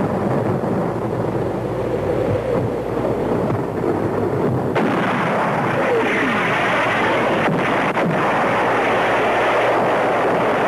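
Continuous battle sound of artillery fire and gunfire, with a falling whistle about six seconds in.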